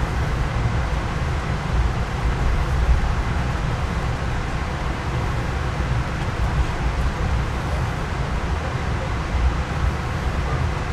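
Steady low rumble of an Amtrak passenger train running along the track, heard from inside the coach.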